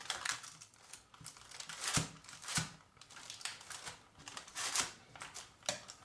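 Metal spoon pressing and spreading a thick, sticky peanut burfi mixture in a baking-paper-lined box, the paper lining crinkling in irregular rustles, with two sharper knocks about two seconds in.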